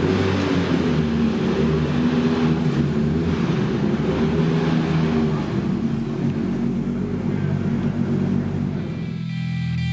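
Formula Renault 2.0 race car engine idling steadily. Music comes in near the end.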